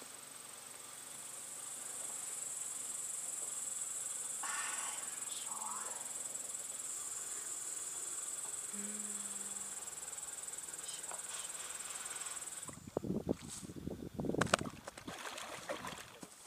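A steady, high-pitched chorus of crickets that cuts off suddenly about three-quarters of the way through. After that, irregular gusts of wind buffet the microphone.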